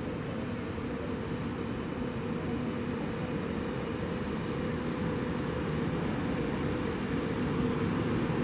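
A Class 111 electric locomotive, with a Class 151 electric locomotive coupled behind, hauling a train of tank cars slowly along a station platform. It gives a steady hum with one steady tone and grows gradually louder as it approaches.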